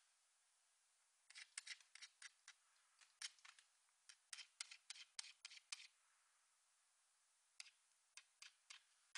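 Faint, irregular clicking and tapping of a small dog's claws as it scrambles after a June bug. The clicks come in quick runs for several seconds, then only a few scattered ones near the end.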